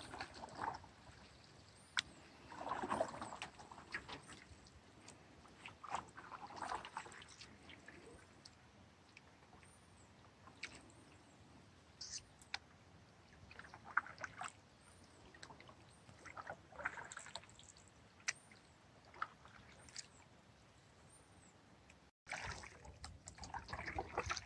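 Faint canoe paddle strokes in calm water: the blade dipping and pulling with soft splashes and drips every few seconds, and a few light sharp knocks.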